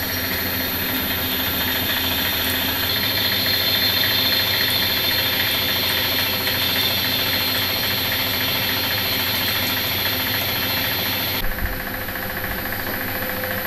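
Machine tool running steadily while cutting metal into chips, with a cutting hiss over the motor hum. About eleven and a half seconds in, the cutting hiss stops abruptly with a low thump, and the machine keeps running.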